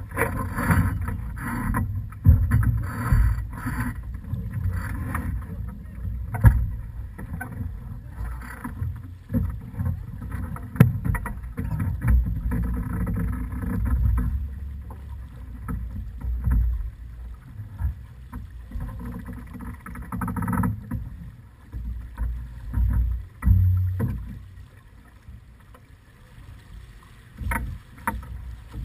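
Wind buffeting the camera microphone and water rushing past the hull of a sailing keelboat under way, a gusty low rumble with hiss that comes and goes. A few sharp knocks stand out, about six and eleven seconds in and near the end.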